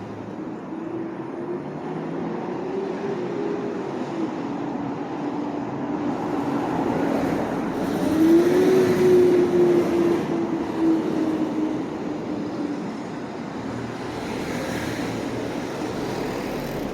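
A vehicle passing close by on a city street, its motor tone bending up and down in pitch over a steady noise, loudest about eight to ten seconds in.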